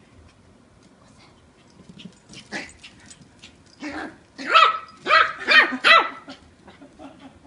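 Eight-week-old Yorkshire Terrier puppy barking: a couple of short yaps, then four loud, high-pitched barks in quick succession past the middle.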